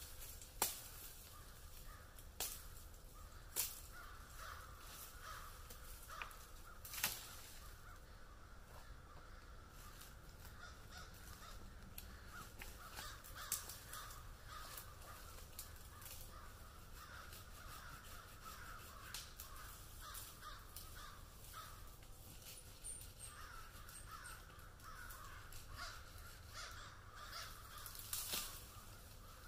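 Crows cawing over and over throughout. A few sharp clicks or snaps come in the first seven seconds and once more near the end.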